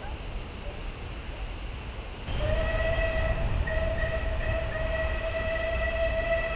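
Whistle of SR Merchant Navy class steam locomotive 35018 British India Line, one long steady note starting about two seconds in and briefly broken twice, over the low rumble of wind on the microphone.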